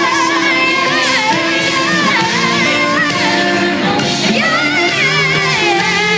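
Live pop band playing under a lead vocal that bends and wavers through runs and held notes, amplified at a concert sound check.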